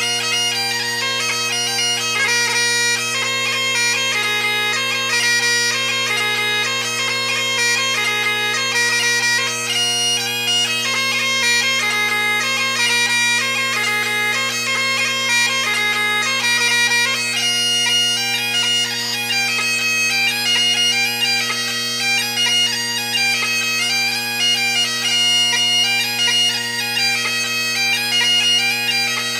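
Great Highland bagpipe played solo: steady drones sounding one unchanging low chord under a quick-moving chanter melody full of rapid note changes.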